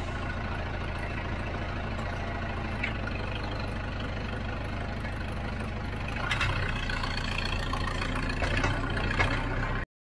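Farm tractor engine running steadily, with rattles and clanks from the loader and pallet forks and a louder engine note from about six seconds in as the tractor moves.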